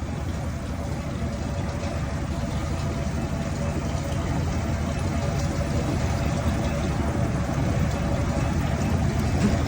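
Steady low mechanical rumble that grows slowly louder.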